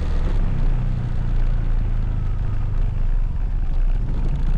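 Motorcycle engine running steadily under way, a low engine note whose pitch lifts slightly for a couple of seconds before settling back.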